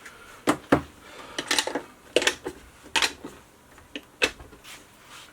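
A series of sharp plastic-and-wood clicks and knocks from handling an electronic puzzle box and its compartments, some in quick clusters, irregularly spaced.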